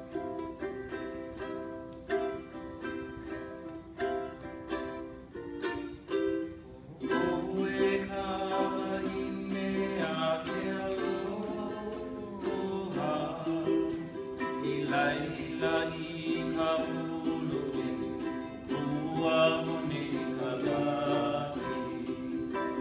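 Two ukuleles strummed together, playing an instrumental opening; about seven seconds in, singing joins the strumming and carries on over it.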